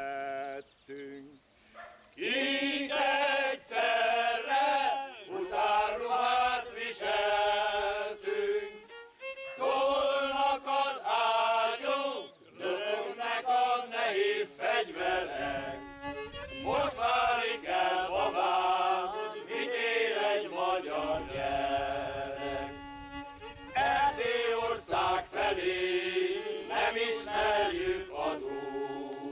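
Men's choir singing with a violin accompanying, in long phrases with short breaks between them; the singing starts about two seconds in.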